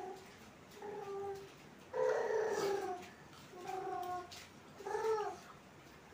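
Four short, high-pitched whining cries, each under a second. The second, about two seconds in, is the longest and loudest, and the last one rises and falls in pitch.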